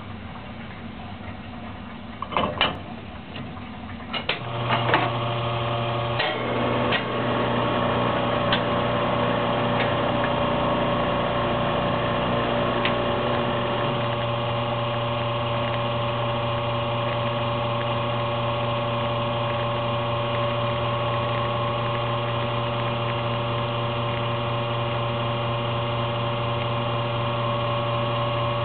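A few clunks as the portafilter is locked into the group head, then the Nuova Simonelli Appia espresso machine's pump starts about four and a half seconds in and runs with a steady hum while the shot extracts.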